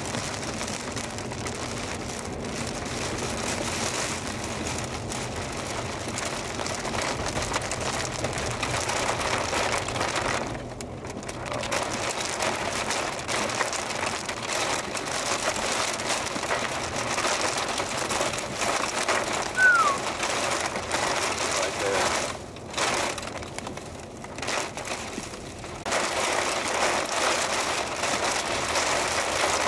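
Steady rush of wind and rain in the tornado's storm, dropping briefly about ten seconds in and again a few times past twenty seconds. A single short falling chirp sounds a little before the twenty-second mark.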